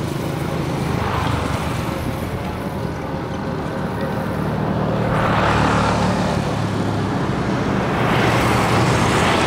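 A boat's engine running steadily with a low hum. A rushing hiss swells up twice, around the middle and near the end.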